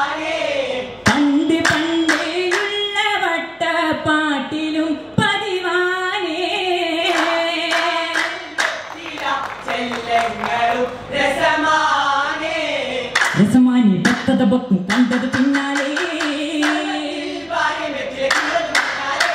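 Vattappattu: a group of male voices singing a Mappila song together, unaccompanied, with sharp hand-claps struck in rhythm.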